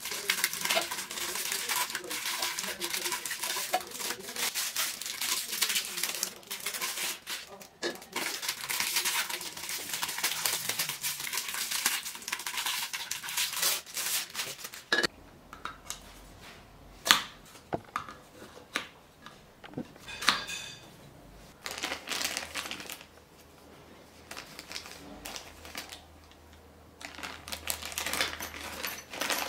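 Plastic packaging wrap crinkling and tearing as it is pulled off the chair's gas-lift column and other parts. A few sharp clicks and knocks in the middle, one of them loud, and a small plastic bag of bolts rustling open near the end.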